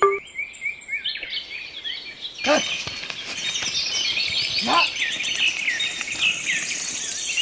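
Many birds chirping and twittering, sparse at first and becoming a dense chorus about two and a half seconds in, with a couple of falling whistle-like sweeps.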